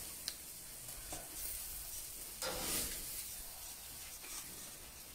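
Faint steady sizzling from a hot gas grill, with a few short knocks and one brief louder scrape about two and a half seconds in.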